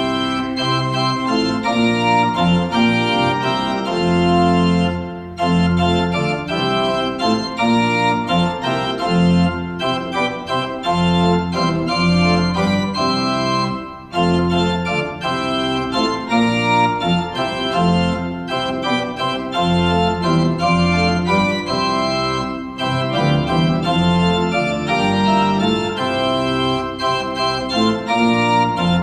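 Organ playing a hymn tune in held chords, with a bass line moving under them. It pauses briefly between phrases; the longest break comes about fourteen seconds in, where one stanza ends and the next begins.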